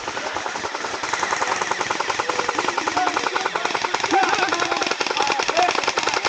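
Airsoft rifle firing sustained full-auto, a fast, even run of shots with no break.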